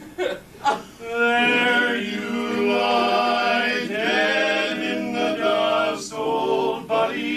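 Male barbershop quartet singing a cappella in close four-part harmony, holding long chords that shift in pitch. Two short sharp sounds come about half a second in, just before the chords begin.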